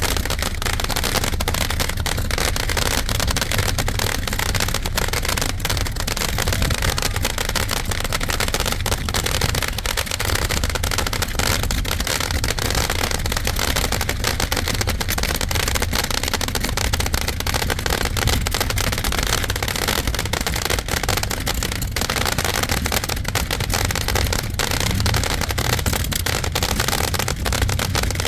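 Fireworks popping and crackling almost without pause, over a steady low rumble.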